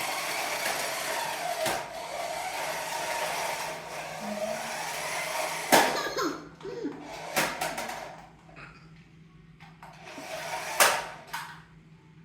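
Small electric motor of a remote-control toy car whirring as it drives. A few sharp knocks come about six seconds in, again a second or so later and near eleven seconds, and the whirr dies down after about eight seconds.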